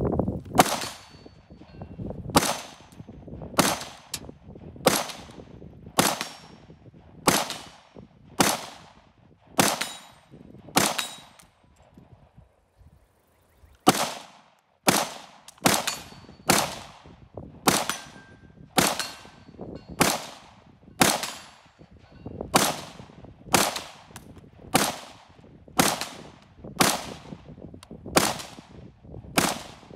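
Springfield Armory Hellion (Croatian VHS-2) 5.56 bullpup rifle fired in steady semi-automatic shots, about one a second, each sharp crack followed by a short echo. The shooting breaks off for a couple of seconds a little before the middle, then carries on at the same pace.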